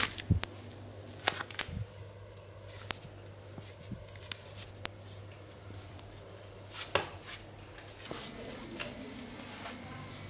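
Scattered soft taps, thumps and rustles of hands and bodies shifting on a foam yoga mat during a stretching massage, with a few sharper knocks near the start and about seven seconds in. A low steady hum runs underneath.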